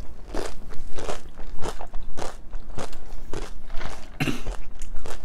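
Crisp tortilla chips being bitten and chewed close to the microphone: a crunch about every half second.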